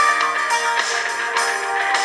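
Samsung Galaxy S4 preloaded ringtone playing: guitar-led music, thin and with no bass.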